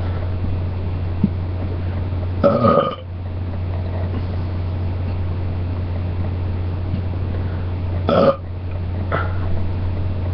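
A person belching: one loud belch about two and a half seconds in, a shorter one near eight seconds and a faint third just after it. A steady low hum runs underneath.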